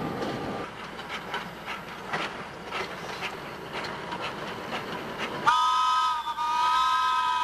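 A small replica steam locomotive's whistle blowing one long, steady blast of several notes at once, starting about five and a half seconds in. Before it, after noise from a passing diesel locomotive stops abruptly near the start, only faint scattered clicks are heard.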